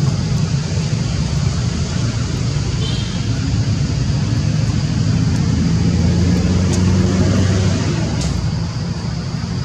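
Low, steady engine hum of a motor running nearby, swelling a little about six seconds in and easing off near the end.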